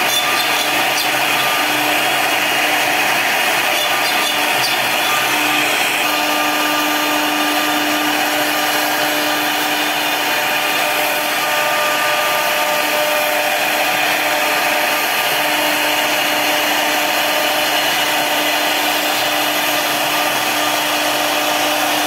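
CNC router spindle running steadily with a 4 mm bit cutting into plywood, giving a steady high tone over the cutting hiss. It first plunges holes, then, about six seconds in, the sound shifts as it starts routing along an outline.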